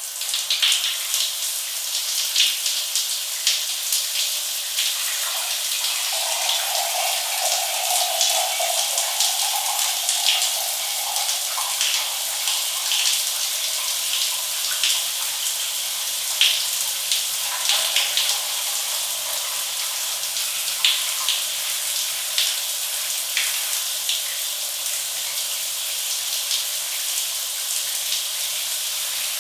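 Shower head running steadily, water spraying and splattering with a continuous hiss and scattered splashes.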